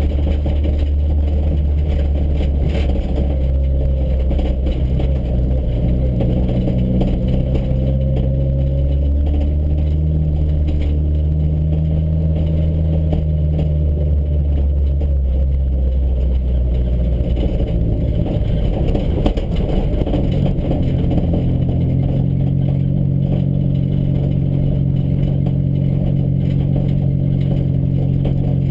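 A vehicle's engine and running noise heard from inside the cabin while driving slowly over a dirt and grass track. The engine note shifts up and down several times as the speed changes, with some light rattling.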